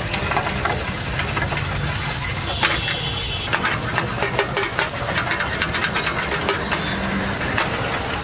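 Eggs sizzling in a hot wok over a gas burner, then a metal spatula scraping and clattering against the wok in quick repeated strokes from about three and a half seconds in as the eggs are stirred.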